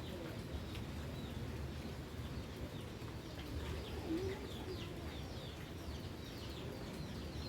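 Birds calling repeatedly with short, quick, downward-sweeping chirps, and one lower warbling call about four seconds in, over a steady low background noise.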